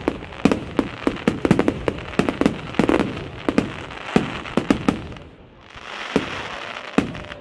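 Fireworks display: a rapid volley of loud bangs from bursting aerial shells, several a second. About five seconds in it thins out into a softer hiss with a couple of single bangs.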